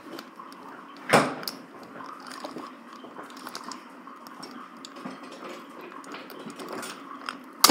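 Handling noise from a new GoPro Hero 9 camera being worked in the hands: small scattered clicks and plastic ticks, a sharper click about a second in and a loud sharp click near the end.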